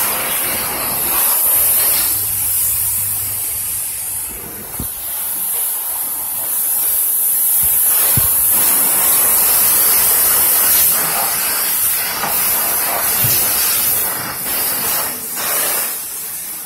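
Car-wash pressure wand spraying a high-pressure water jet onto a car's body and wheels: a steady hiss of spray that swells and dips as the jet moves over the panels.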